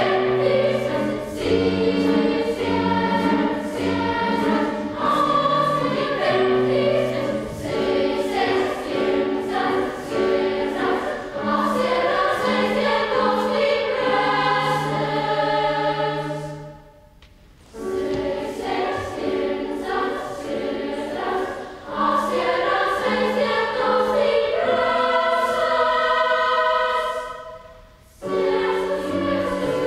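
Children's choir singing a choral piece in parts, with two brief pauses, about halfway through and near the end.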